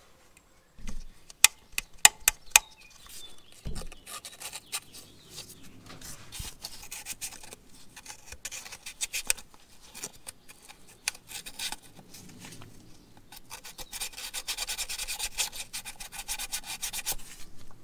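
Sandpaper drawn back and forth between the breaker points of an old magneto, a fast scratchy rasping, to clean the contacts for spark. A few sharp clicks come about two seconds in, and the rubbing grows louder in the last few seconds.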